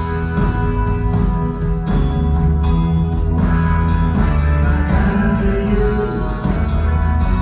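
A live blues-rock band playing continuously, with a strong bass under pitched instruments, taped from the audience in the concert hall.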